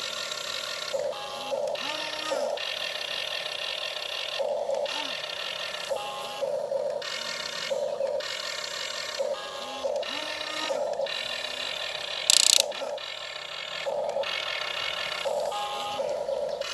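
Small electric motors of a radio-controlled model excavator whining in short start-stop runs, their pitch rising and falling as the machine moves. A brief sharp hiss about three-quarters of the way through.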